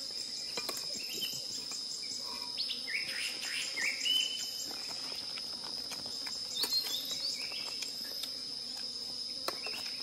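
Steady high-pitched insect drone, with short whistled bird calls in two brief bouts: one about a third of the way in and one around the middle.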